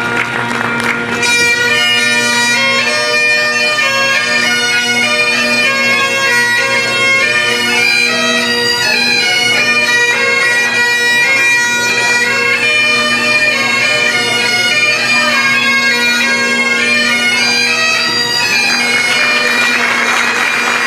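Bagpipes playing a tune over their steady drone; the melody comes in about a second in.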